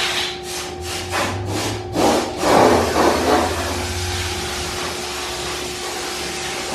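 Two-post car lift's hydraulic power unit running with a hum while the car on it is moved, with regular clicks in the first two seconds and a louder rushing noise about two seconds in.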